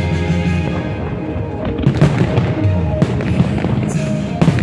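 Aerial fireworks shells bursting, a few sharp bangs and crackles about two seconds in and again near the end, over music playing steadily.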